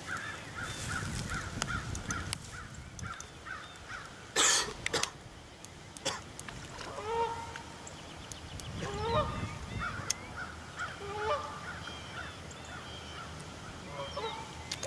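Birds calling, with many short repeated calls overlapping. About four and a half seconds in there is a brief, loud noise, sharper than the calls.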